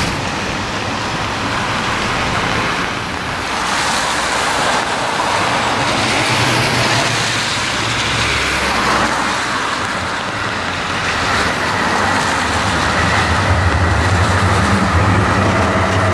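Traffic on a rain-wet street: a car's tyres hiss past on the wet road. Near the end an electric tram draws close, with a low hum and a steady whine from its motors.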